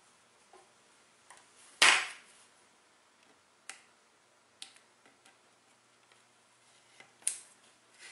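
A few sharp clicks and taps as a wooden toothpick picks and scrapes at the painted plastic model flight deck, working off paint bleed-over along the edge of the masked elevator outline. The loudest click comes about two seconds in, another near the end.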